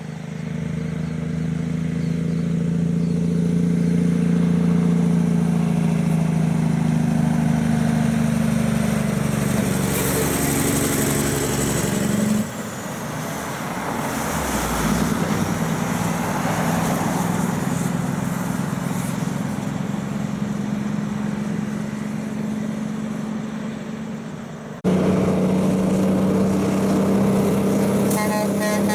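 Heavy diesel trucks with a steady engine drone, heard in three clips joined by abrupt cuts. The first is a cab-over truck coming round a bend, the second a truck approaching on the hill road, and the last a Freightliner cab-over truck and trailer passing close.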